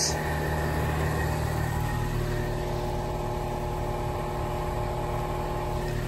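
Outdoor air-conditioning condensing unit running: a steady hum from its compressor and condenser fan, with a few steady tones in it.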